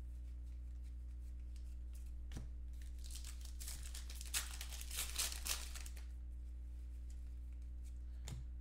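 Foil trading-card pack wrappers being torn and crinkled and cards handled, in several short rustling spells, over a steady low electrical hum.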